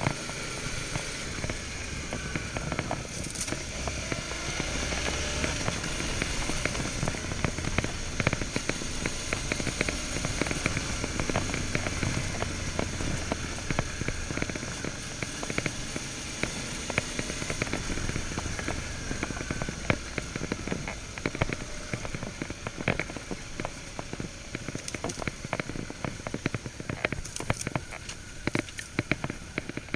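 Suzuki V-Strom 650 V-twin running steadily under way on a trail, with a constant crackle and patter of gravel under the tyres and against the bike. The clicks grow denser in the second half.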